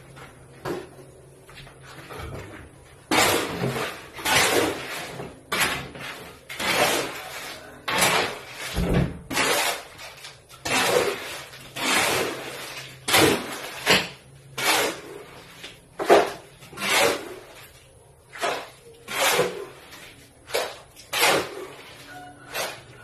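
Steel shovel scraping across a concrete floor, turning and scooping wet cement mortar in repeated strokes about one a second.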